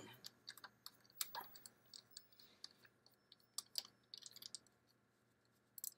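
Faint, irregular small metallic clicks and ticks of a hex key working the hex screws that hold an AR-15 free-float handguard to its barrel nut.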